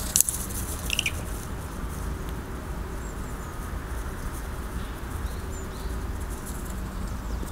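Faint outdoor ambience: a steady low rumble with a few short, faint, high bird chirps, and a single click right at the start.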